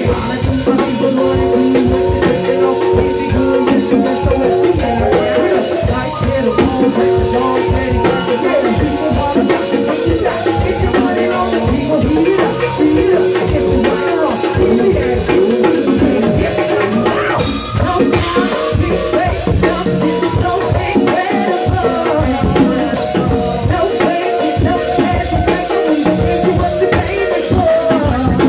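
Live go-go band playing: congas and bongos drive a dense steady rhythm under sustained keyboard chords and a drum kit.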